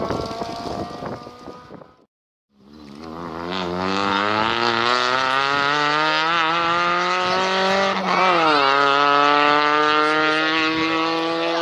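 Rally car approaching at full throttle, its engine pitch climbing steadily as it accelerates, dipping briefly and picking up again about eight seconds in, then holding high. The first two seconds are the tail of another engine, cut off by a short silence.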